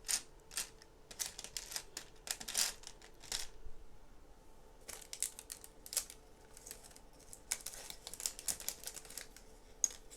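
Lego Technic plastic pieces clicking and clacking as they are handled and pushed together, in irregular clusters of sharp clicks with short pauses between.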